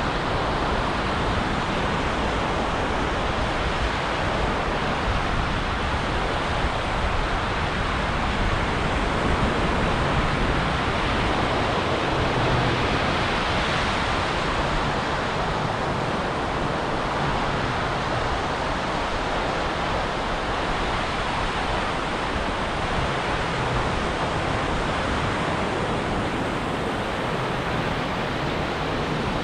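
Ocean surf breaking on a beach: a steady, continuous wash of waves with slight swells in level.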